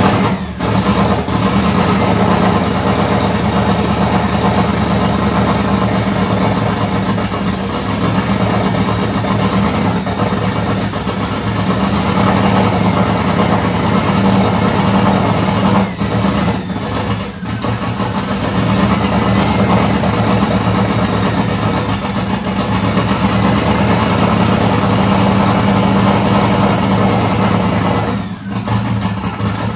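Turbocharged 5.0-litre small-block Ford V8 running loud through an open downpipe with no exhaust, just after its first start on newly installed, untuned fuel injection. It keeps running only while fed throttle, and the sound sags briefly a few times; the owner thinks it may be getting too much fuel.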